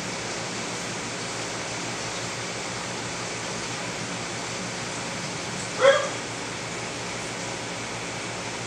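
A dog gives one short, sharp yip about six seconds in, over a steady hiss.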